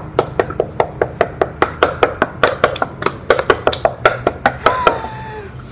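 A rapid run of sharp clicks and taps, about five a second, as white flat-pack board panels are handled and pressed into each other's slots by hand, over a steady low hum.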